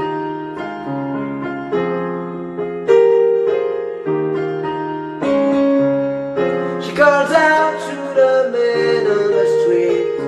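Yamaha PSR-S500 arranger keyboard on a piano voice, playing slow, sustained chords struck about once a second. A man's singing voice comes in about seven seconds in, over the chords.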